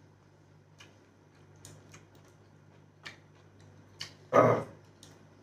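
Eating sounds: scattered short wet mouth clicks and smacks of chewing, with one brief, louder voiced sound from a man a little past four seconds in.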